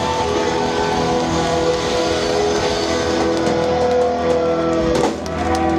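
Live rock band playing, led by electric guitar with held notes and bends; the sound dips briefly about five seconds in.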